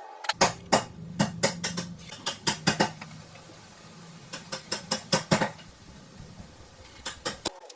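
Runs of quick, irregular sharp clicks and knocks over a low steady hum that cuts off suddenly near the end.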